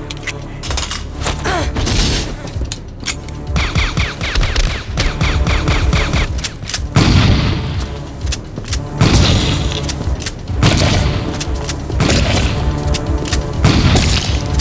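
Movie gunfight sound effects: a rapid run of pistol shots, then from about seven seconds in, heavy, deep shotgun blasts about one every second and a half.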